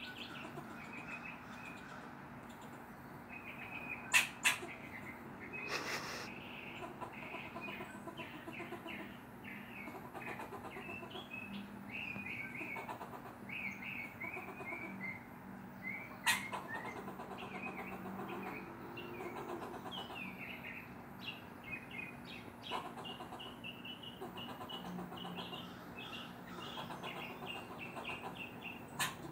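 A squirrel barking: a long run of short, sharp calls, several a second, pausing now and then. A few loud sharp clicks stand out, about four seconds in, near the middle and near the end.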